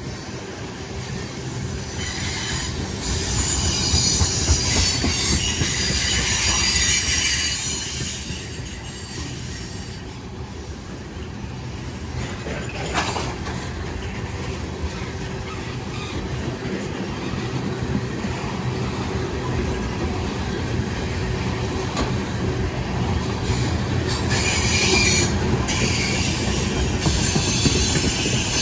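Freight train rolling past on steel wheels, with a steady rumble and clatter of wheels over the rail joints. High wheel squeal comes in twice, from about two to eight seconds in and again near the end.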